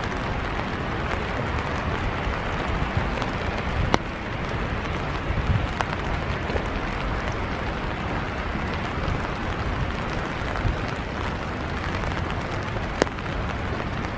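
Steady rain noise, an even hiss with a low rumble underneath, broken by a few sharp ticks about four seconds in and again near the end.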